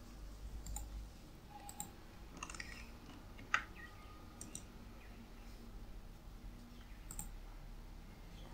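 Scattered faint clicks of a computer mouse and keyboard while working between browser tabs, about six in all, with the sharpest one about three and a half seconds in.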